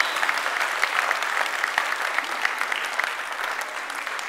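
Audience applauding, many hands clapping at once, the clapping gradually dying down.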